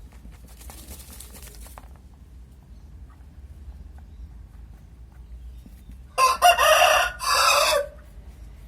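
A rooster crows once, about six seconds in, a loud call of under two seconds with a brief break partway through.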